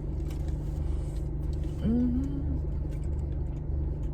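Steady low hum of an idling car, with a person's short hummed "mm" about two seconds in.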